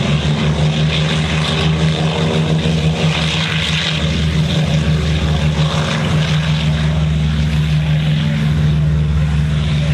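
Twin piston engines and propellers of a vintage warbird running steadily as the plane rolls along the runway: a loud, even low drone with propeller rush.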